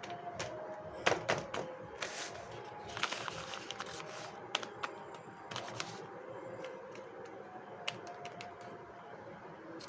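Hands handling and opening a blind bag: quick clicks and taps of plastic packaging, with a stretch of crinkling about two to three and a half seconds in. Faint background music underneath.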